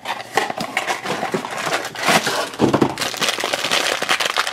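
A cardboard blind box being opened and the black foil bag inside pulled out and crinkled in the hands: a dense, continuous run of crackles and rustles.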